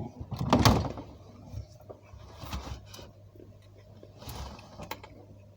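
Someone handling things at a refrigerator: a series of irregular scrapes and knocks, loudest about half a second in, over a steady low hum.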